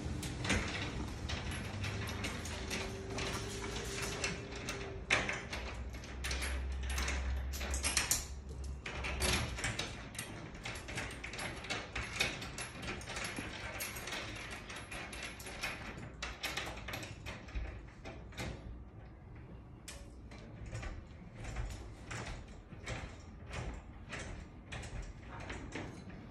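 Irregular metal clicks, knocks and scraping as a steel lift-motor tube is held to ceiling strut channel and its bolts are turned in by hand. The knocks thin out over the last third.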